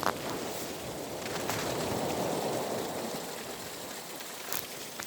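Water rushing and washing, swelling about a second and a half in and fading again, with a couple of faint clicks near the end.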